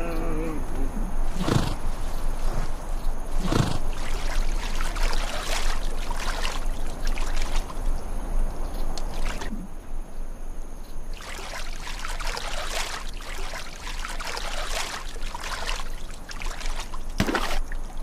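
Shallow water trickling and sloshing steadily, with a few sharper splashes standing out now and then.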